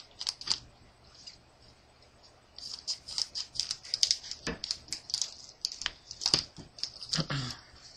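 Foil trading-card booster pack crinkling as it is opened and handled, in quick runs of small crackles, with a few dull knocks in the second half.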